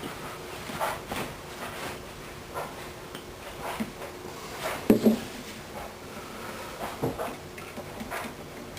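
Irregular scraping, creaking and clicking of a blade prying the binding and plywood back off an archtop guitar, with a louder pair of knocks about five seconds in.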